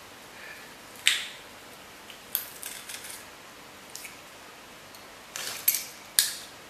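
Metal garlic press clicking and clacking as garlic cloves are squeezed through it, a handful of sharp metallic clicks spread over several seconds.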